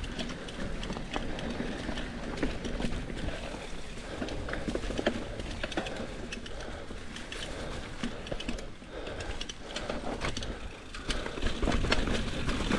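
Mountain bike rolling along a dirt trail: irregular clicking and rattling from the bike, with a steady low rumble of wind on the microphone.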